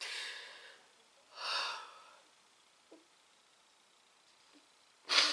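A woman breathing audibly, with no words: a long breath at the start, another about a second and a half in, and a sharp, louder breath near the end.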